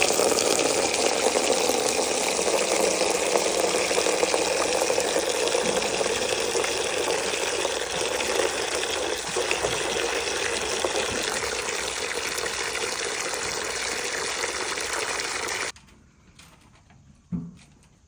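Water running hard and steadily while the ponies' water is filled, stopping abruptly about two seconds before the end.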